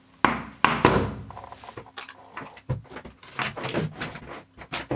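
A run of sharp knocks and clatters of hard objects being handled and set down on a work surface, the loudest near the start.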